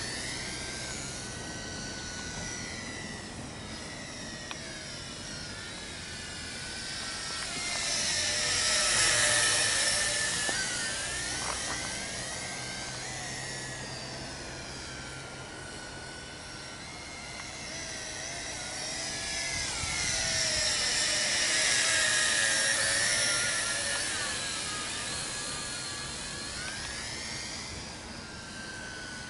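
Tarantula X6 hexacopter drone's rotors whining as it flies. The pitch slides up and down, and it passes close twice, loudest about a third of the way in and again a little past the middle.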